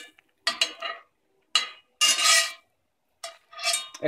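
Metal slotted spatula scraping against a buttered cast iron skillet in about four short strokes as the pancake is pushed around the pan to mop up the butter.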